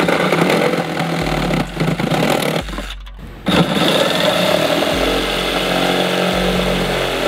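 Cordless Milwaukee Hackzall one-handed reciprocating saw cutting through a mounting bracket. It stops briefly about three seconds in, then starts cutting again.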